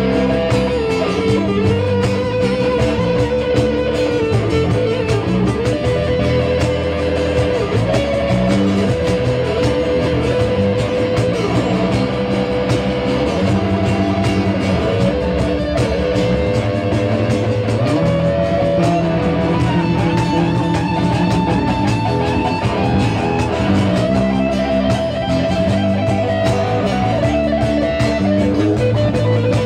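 Live rock band playing, with an electric guitar holding long, bending notes over bass and drums.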